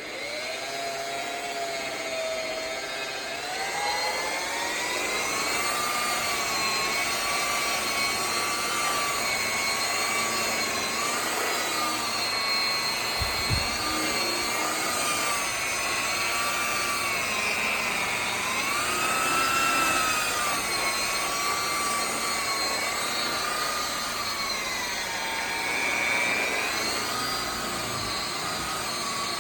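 Electric polisher running on a chrome car bumper. Its motor whine climbs in pitch as it spins up over the first few seconds, then wavers up and down as it is pressed and worked across the wax.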